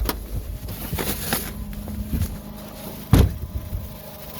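A car door shut with a single heavy thump about three seconds in, after a few lighter clicks and rustles of someone climbing out. The Nissan Altima's engine idles faintly underneath.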